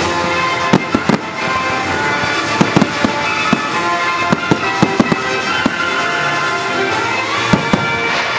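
Fireworks bursting in a string of sharp bangs, thickest from about two and a half to five seconds in, over loud music with sustained tones.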